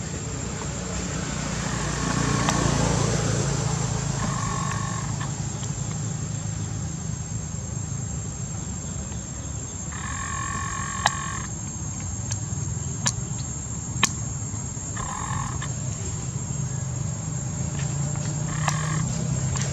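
Outdoor ambience: a steady low hum, with a short animal call at one level pitch repeating four times, each lasting up to about a second. There are also a few sharp clicks.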